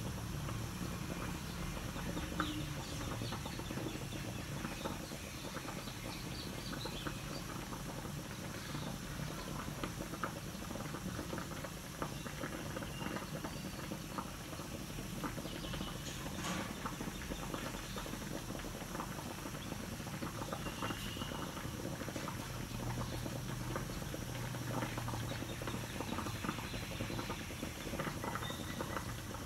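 Tocino (sweet cured pork) simmering in its marinade liquid in an aluminium wok, giving steady bubbling with many small pops and crackles. The liquid is still boiling down before the meat begins to fry in its own fat.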